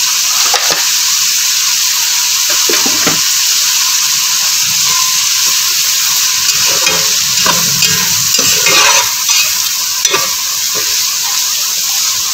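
Sliced onions sizzling in hot oil in a pot with freshly added spice powders. A slotted spatula stirs and tosses them, scraping the pot in irregular strokes that come thickest in the second half.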